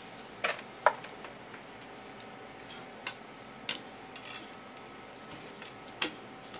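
Kitchen knife and fish handled on a wooden cutting board: about five sharp knocks and clicks, the loudest about a second in, with a brief scrape a little past halfway.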